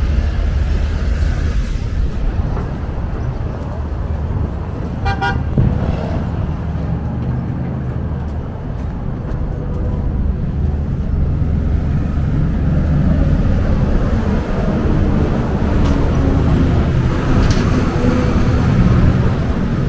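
Steady city street traffic with a low engine rumble, and a short car horn toot about five seconds in.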